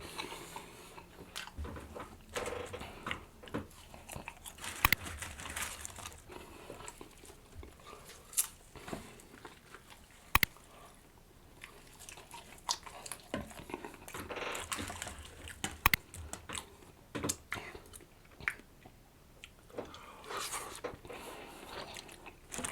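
A person chewing and biting food close to the microphone, with irregular wet smacks and crunches. There are sharp clicks about 5, 10 and 16 seconds in.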